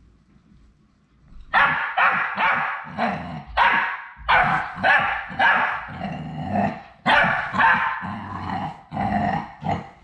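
A dog barking repeatedly in a fast run of loud barks, about two to three a second, starting about a second and a half in.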